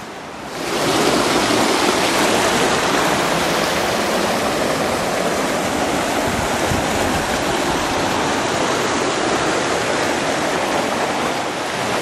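Fast-flowing river rushing over rocks: a steady, loud rush of water that swells up suddenly under a second in and then holds.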